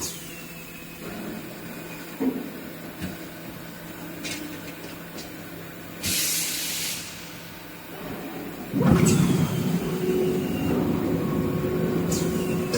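Workshop machinery: a low hum with a few clicks, then a short hiss of air about six seconds in. About nine seconds in, a machine starts and runs steadily and louder.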